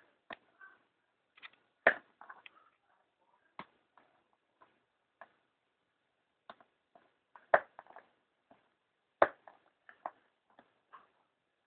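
Scattered clicks, knocks and light rustling of cardboard box packaging being handled during an unboxing, with three sharper knocks: one about two seconds in and two more close together later on.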